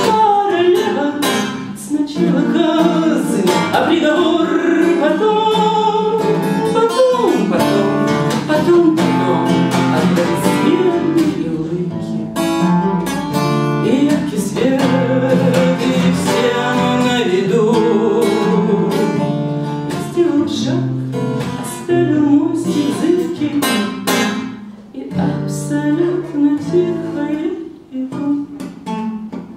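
A woman singing a slow bard song, accompanying herself on a strummed acoustic guitar. Near the end the playing thins out and gets quieter.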